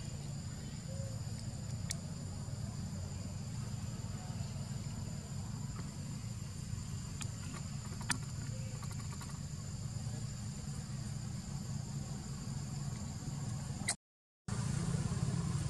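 Steady high-pitched drone of insects, with a steady low rumble beneath and a couple of faint sharp clicks. The sound cuts out completely for about half a second near the end.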